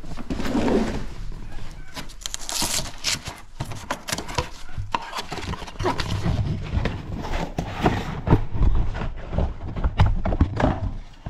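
Irregular knocks and clunks of a car's rear shock absorber and tools being handled during the shock swap, with a stretch of rustling about two to three seconds in.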